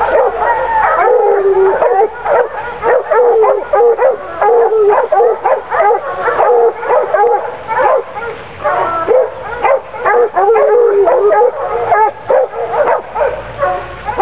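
A pack of young Plott hounds barking without pause, several voices overlapping, as they bay a hog.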